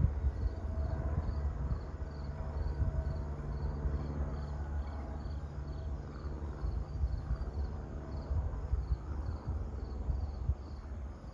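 Insects chirping in a steady rhythm of about two pulses a second, over the low rumble of a small jet flying high overhead.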